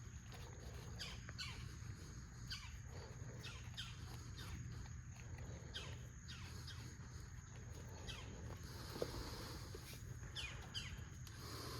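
A bird chirping, a series of short falling notes about one every second or so, over a faint low steady hum.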